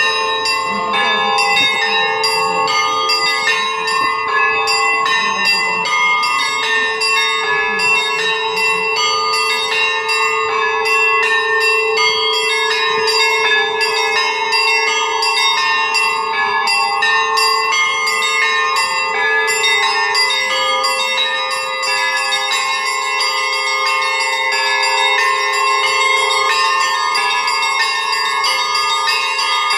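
Russian Orthodox monastery bells rung in a continuous peal (zvon): quick, dense strikes on the small high bells over the sustained ringing of the larger bells.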